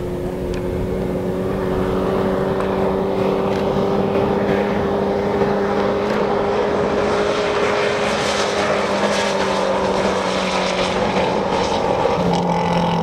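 An engine running at a steady, even pitch that drops slightly near the end, with a rough hiss over it that grows louder toward the middle.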